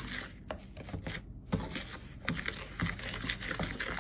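A small metal mixing tool scraping and clicking against the bowl as crumbly salt dough of flour, salt and water is stirred, in irregular strokes.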